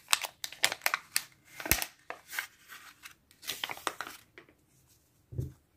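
Paper stickers and a kraft-paper sticker packet being handled: irregular rustling, crinkling and light taps of paper for about four seconds, then it stops.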